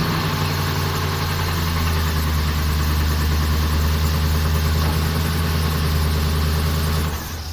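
Car engine idling steadily, freshly started off a portable lithium jump starter. The engine sound stops near the end.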